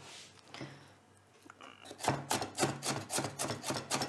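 Kitchen knife chopping onion on a wooden cutting board. A few soft strokes come first, then from about two seconds in a steady run of quick chops, about four a second.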